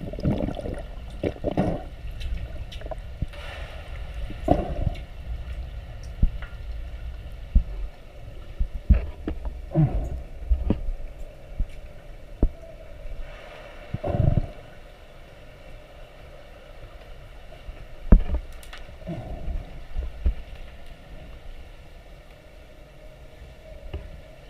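Underwater pool sound picked up from below the surface: a steady muffled low rumble with irregular knocks and short bubbling gurgles, the loudest knock about 18 seconds in.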